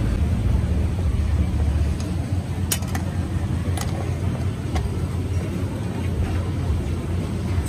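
Busy street ambience: a steady low rumble with faint background voices and a few sharp clicks.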